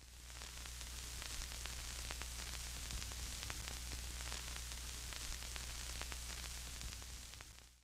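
Electronic static: a crackling hiss with scattered clicks over a steady low electrical hum. It fades in at the start and fades out near the end.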